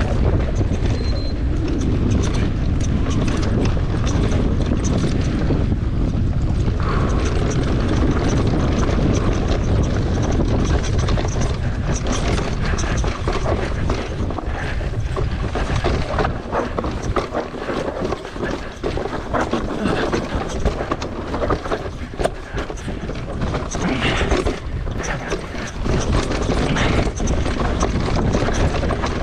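Wind buffeting the microphone of a camera on an e-mountain bike riding down a dirt trail, with tyre noise and frequent rattles and clacks as the bike runs over rocks and roots.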